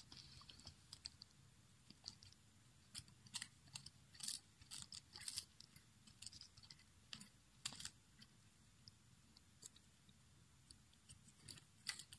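Russian Blue cat biting and chewing a lettuce leaf: faint, irregular crisp crunches.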